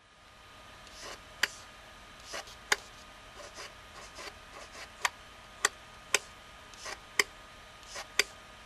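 A fingertip rubbing back and forth over a tabletop and a small raised black block: soft swishes of skin sliding on the surface, and about seven sharp, irregularly spaced clicks as the finger strikes the block.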